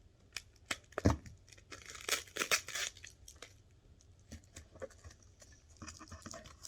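Packing wrapping crinkling, rustling and tearing as it is pulled off, in irregular bursts. A single hard knock about a second in, from something solid being set down or bumped.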